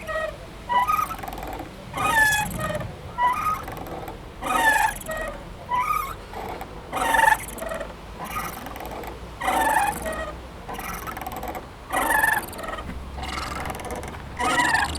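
Playground swing squeaking rhythmically as it swings back and forth, a loud gliding squeak about every two and a half seconds with fainter squeaks in between, from the swing's hangers or chains rubbing.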